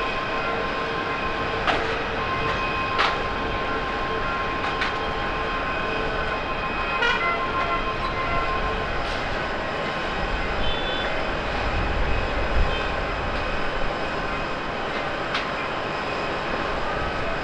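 Jet airliner engines heard from a distance: a steady rushing noise with a faint steady whine in the first half and a low rumble swelling briefly near the middle. A few sharp clicks are scattered through it.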